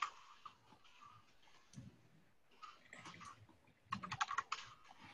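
Computer keyboard typing: a quick run of key clicks about four seconds in, with only a few faint scattered clicks before it.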